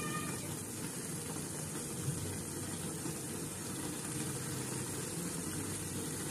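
Thick spinach gravy simmering in a pan over a gas flame: a steady hiss.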